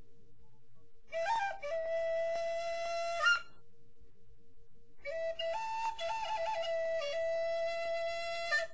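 Solo flute music: two phrases of long held notes with short ornamental trills, separated by a pause of about a second and a half.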